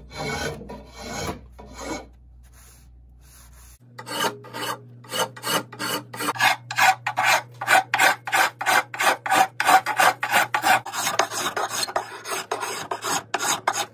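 Hand rasp scraping along a wooden axe handle in repeated strokes as the handle is thinned by hand. A few strokes come first, then a short lull about two seconds in. After that the strokes are quick and even, about three a second.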